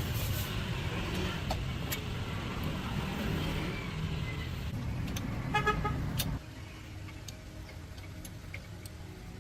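A motor vehicle engine running steadily, with a short horn toot about five and a half seconds in. The engine rumble cuts off suddenly a moment later, leaving only scattered light clicks.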